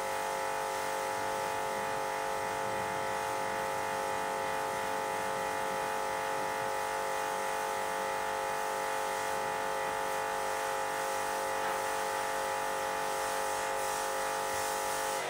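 Induction cooktop running with a steady electrical hum made of several pitched tones, cutting off suddenly at the end.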